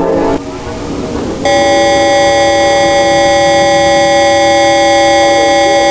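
Emergency alert attention tone: a loud, steady tone of several pitches sounding at once, starting about a second and a half in and holding without change. Just before it, a sustained low chord cuts off and gives way to a moment of hiss.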